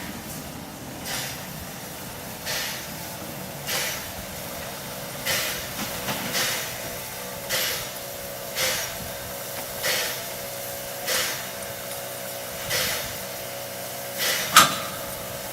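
Narrow-gauge steam locomotive working slowly, its exhaust chuffing about once every second and a bit, with a steady hiss underneath. A single sharp crack sounds near the end.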